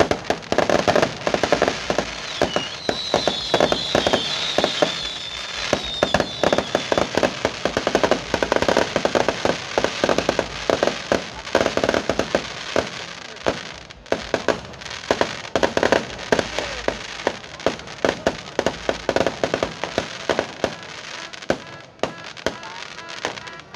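Fireworks going off in a dense, continuous run of rapid pops and crackles, with high wavering whistles in the first several seconds.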